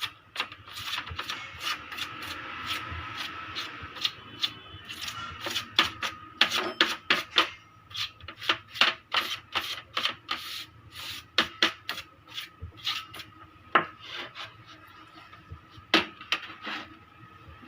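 A brush scrubbing dust out of the inside of an opened keyboard in quick back-and-forth strokes, thickest in the middle and sparser near the end.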